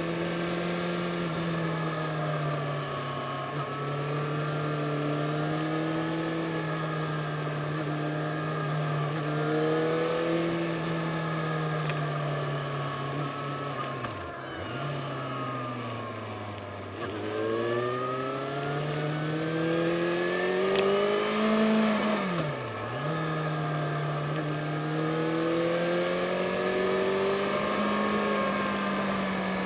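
Yamaha Fazer FZ6 S2's inline-four engine running under way in mid revs, heard from on board with wind noise on the microphone. Its pitch sags about halfway through as the throttle eases, then climbs steadily and dips sharply for a quick gear change a little past two-thirds in before pulling again.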